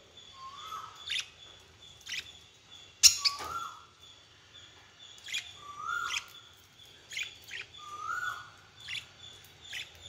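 Budgerigars chirping: short sharp chirps every second or so, with a short rising note repeated four times at even spacing. A sharp knock about three seconds in is the loudest sound.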